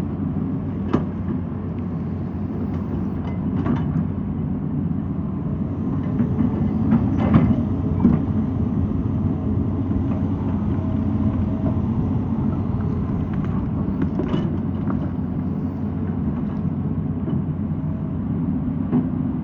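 Excavator's diesel engine running steadily under load, with a handful of sharp knocks and clanks.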